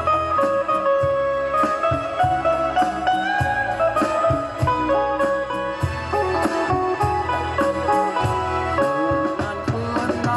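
Instrumental break in a band's song: a lead guitar plays a melody with sliding, bending notes over bass and a steady drum beat.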